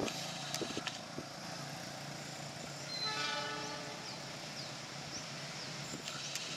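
Diesel locomotive horn sounding one blast of about a second, a little past halfway, over the low steady running of the approaching train.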